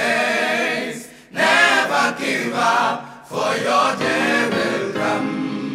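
Voices singing choir-like, unaccompanied, in long held phrases that break off briefly about a second and about three seconds in.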